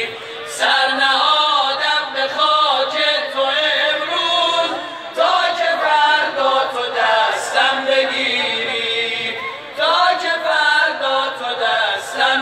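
A man's voice chanting a religious verse through a microphone and loudspeakers, in long melodic phrases with short breaks between them.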